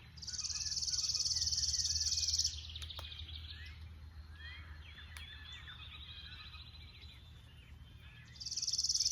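Woodland songbirds singing: a high, fast, dry trill about two seconds long near the start, and the same trill again near the end, with other birds' shorter whistled notes more faintly in between.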